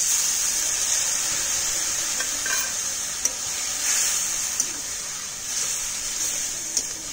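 Potatoes, drumsticks and ground spices sizzling in hot oil in a pan just after a little water has gone in, as the masala is sautéed and stirred; the sizzle slowly dies down, and the spoon clicks against the pan a few times.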